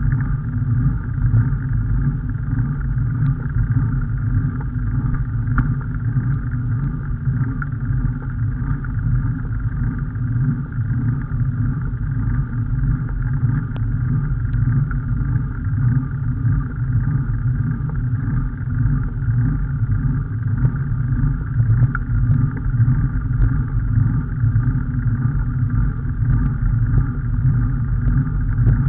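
Steady low rumble of travel noise, wind and road, picked up by a camera moving along the road.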